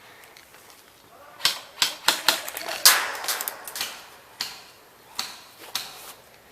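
Airsoft gun shots: a rapid, irregular string of about a dozen sharp clicks starting about a second and a half in, bunched most tightly in the middle and thinning out toward the end.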